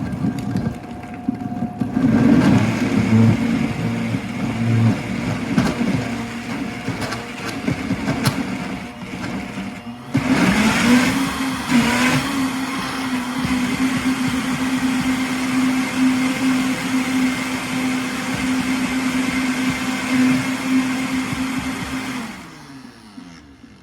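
Countertop blender blending frozen fruit. For the first several seconds the motor runs unevenly, labouring as the frozen chunks catch. About ten seconds in it picks up speed to a steady, even hum, then winds down near the end.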